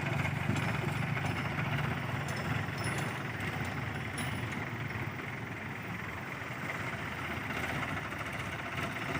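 Heavy diesel engine running steadily at a low, even pitch, easing off slightly over the first few seconds, with a few faint clicks.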